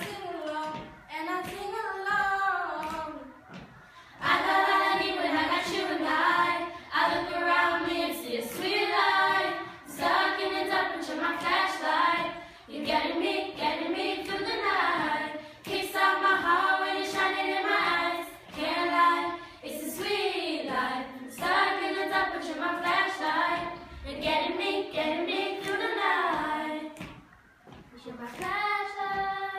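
A group of teenage girls singing a pop song together, unaccompanied, in phrases with short breaths between them and a brief pause near the end.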